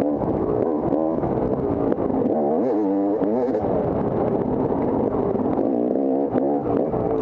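Dirt bike engine revving up and down under the rider's throttle, its pitch rising and falling repeatedly, with a few sharp clicks mixed in.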